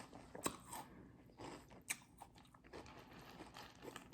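Faint chewing of Cap'n Crunch cereal in milk, with a few sharp crunches, the clearest about half a second and about two seconds in.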